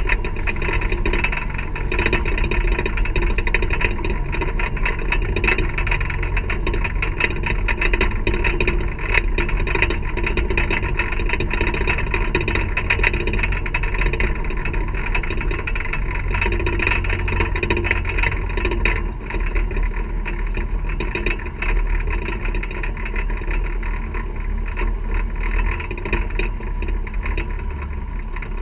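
Boat engine running steadily while the boat is under way, mixed with a rush of wind and water.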